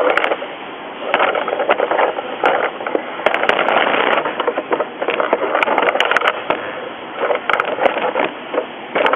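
Hands handling a small machine assembly and its wiring: a steady run of rubbing and scraping, with many small clicks and knocks.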